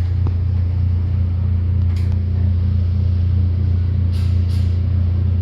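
Steady low background hum of the exhibition hall, with a few faint short clicks about two seconds in and twice after four seconds.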